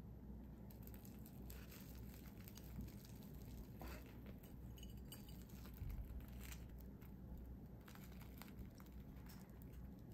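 Faint crackling and tearing of a crisp breadcrumb-coated fried curry bread with a minced meat cutlet inside as it is pulled apart by hand, in scattered small crackles.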